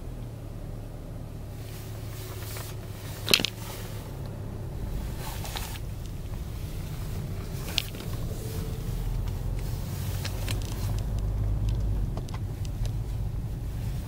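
Ford car's engine running and the car rolling slowly, heard from inside the cabin as a steady low rumble, with a sharp click about three seconds in and a lighter one near eight seconds. The engine keeps running throughout.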